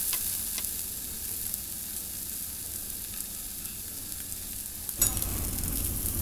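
Thin slices of meat sizzling on a tabletop yakiniku grill, a steady high hiss. About five seconds in it gives way to a fuller, lower background noise.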